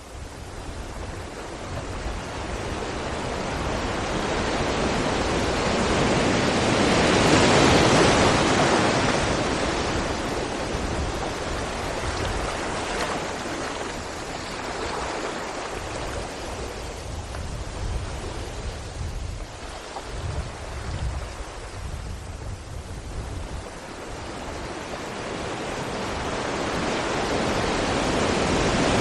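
Sea waves breaking against rocks: a swelling rush of surf that peaks about eight seconds in, eases away, and builds again near the end, with low rumble and some wind on the microphone.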